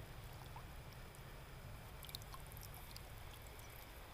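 Faint trickle of river water, with a few small drips or ticks about two seconds in, over a low steady rumble.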